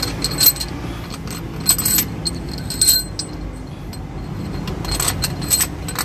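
Steel head bolts clinking against the engine's cylinder head as they are set in place and threaded by hand: scattered sharp metallic clicks that ring briefly, about half a dozen, over a steady low hum.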